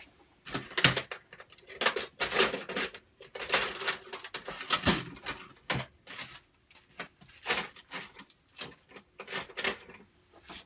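Irregular scratchy rustling and clattering of small objects being handled at a workbench, in short bursts of under a second each, about a dozen of them.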